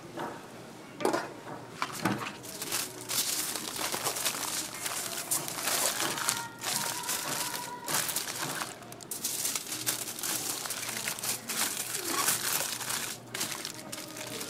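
Aluminium foil crinkling and crumpling as it is folded by hand around a toast sandwich, with a couple of knocks in the first two seconds.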